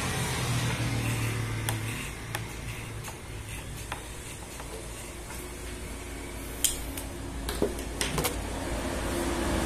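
Corded electric hair clipper buzzing as it cuts a man's short hair, a steady low hum that is strongest in the first couple of seconds and then fainter. Several sharp clicks come near the end.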